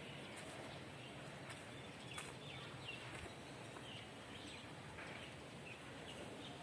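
Faint outdoor background noise with a few scattered short bird chirps.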